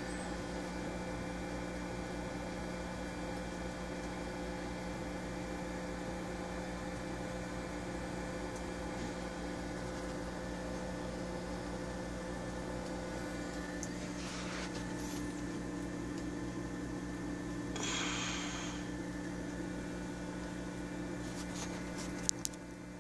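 Steady hum from running reef-aquarium equipment, several steady tones over a low whir, with a brief hiss about three quarters of the way in and two sharp clicks near the end.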